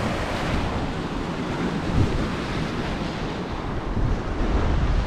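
Lake Superior waves washing and breaking over shoreline granite, with wind buffeting the microphone in gusts that grow heavier in the second half.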